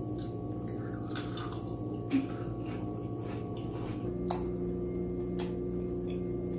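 Mukbang eating sounds, chip crunching and chewing with scattered sharp clicks, over steady held tones of background music. The tones change about four seconds in.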